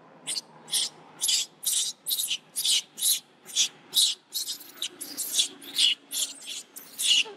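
Baby long-tailed macaque screaming in distress, a fast train of short shrill cries about three a second, as its mother grabs and bites it.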